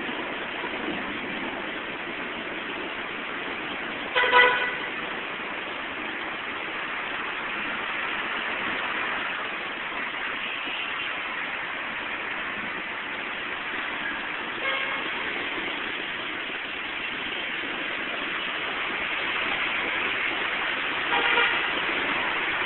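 Steady hiss of heavy rain and traffic on a wet road, with car horns sounding: a loud short honk about four seconds in, a fainter one at about fifteen seconds, and another near the end.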